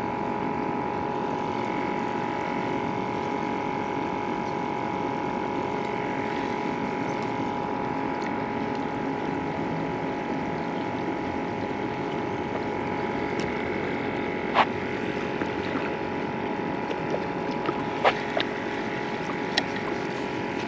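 A steady mechanical hum with a few fixed tones in it, over a constant wash of noise, as from a running pump or similar machinery. A couple of sharp clicks stand out about fourteen and eighteen seconds in.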